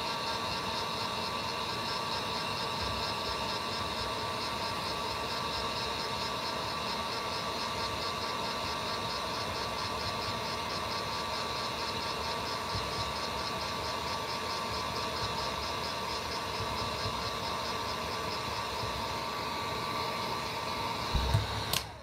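Electric heat gun blowing hot air steadily, a rushing hum with a steady whine over it, heating a plastic action-figure head to soften it. Near the end a knock, and the heat gun cuts off.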